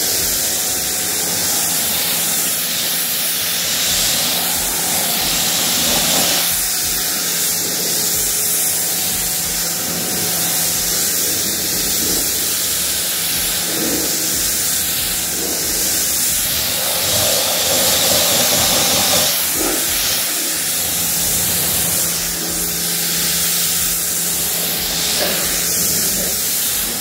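Pressure washer jet rinsing snow foam off a car's body panels: a steady, loud hiss of spraying water with a steady low hum underneath.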